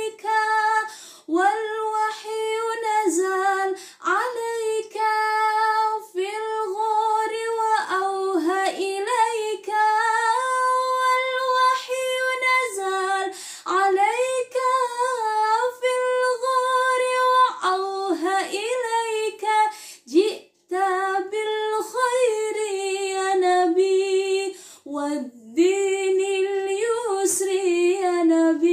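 A woman singing an Arabic sholawat solo, with no accompaniment. She holds long notes, some steady and some wavering in ornamented turns, with short breaks between phrases.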